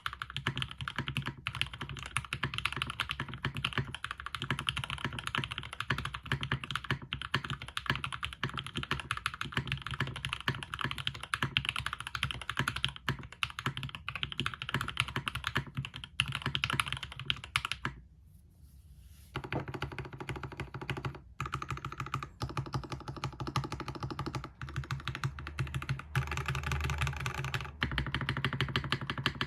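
Fast continuous typing on a custom 60% mechanical keyboard with Gateron Ink linear switches on a UHMWPE plate and GMK keycaps, a quick run of clacky keystrokes. There is a short pause a little over halfway through, then the typing resumes.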